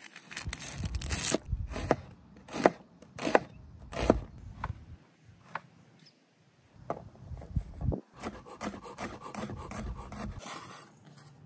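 Chef's knife cutting a shallot and garlic on a wooden cutting board: a series of sharp, uneven knife strikes against the board, with short pauses between runs.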